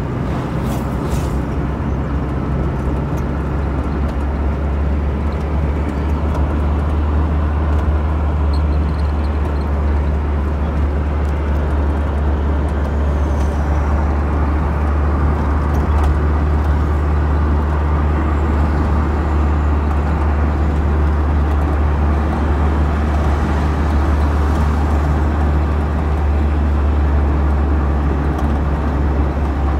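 Car driving at highway speed, heard from inside the cabin: a steady, deep engine and road rumble with tyre noise over it.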